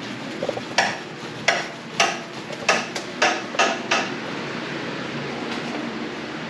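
Metal being struck: about seven sharp knocks in about three seconds, coming a little faster toward the end, then they stop. A steady shop hum sits underneath.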